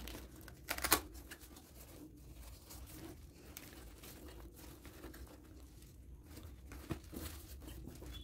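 Plastic packaging crinkling and rustling as a handbag is handled on it, with one louder rustle about a second in and a few brief ones near the end.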